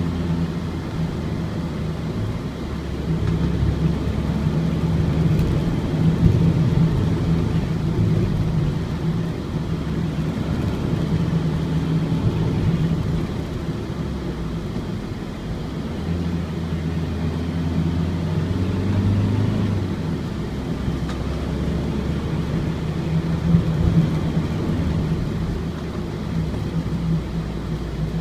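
Ford Transit four-cylinder diesel engine running under way, with road noise, heard from on board the van. The engine note steps up and down a few times as the van changes speed.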